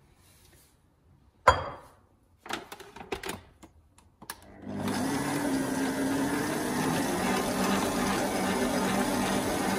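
An electric stand mixer switches on about four and a half seconds in and runs steadily with a low motor hum, mixing the last of the flour into pizza dough. Before it starts there is one sharp knock and a few lighter clicks.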